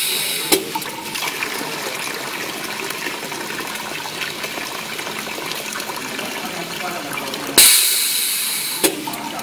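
Semi-automatic filling machine running a fill cycle: liquid flows steadily. About seven and a half seconds in comes a sudden loud hiss that fades over about a second and ends in a click.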